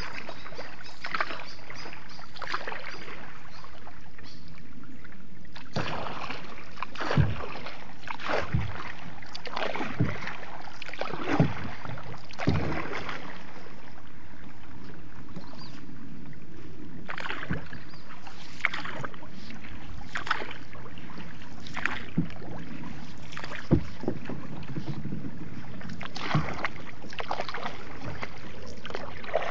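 Paddle strokes through floodwater from a small boat: an irregular splash or swish about every second or so, a few of them with a dull knock, over a steady hiss.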